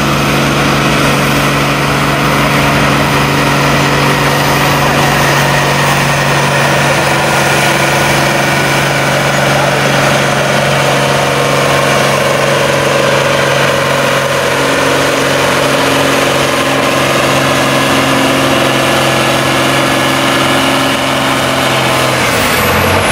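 John Deere diesel farm tractor pulling a weight-transfer sled under full load, its engine held at a steady high speed. About 22 seconds in the engine note drops off as the tractor stops pulling and the run ends.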